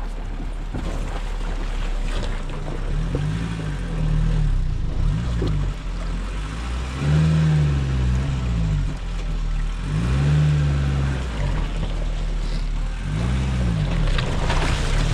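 Safari vehicle's engine running as it drives a forest track, its pitch rising and falling again every few seconds as it speeds up and eases off.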